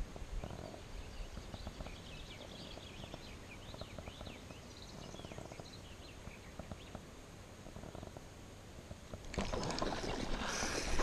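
Faint chirping of small birds over a low rumble of wind and handling noise on the microphone. About nine seconds in, a louder rustling, scraping noise starts.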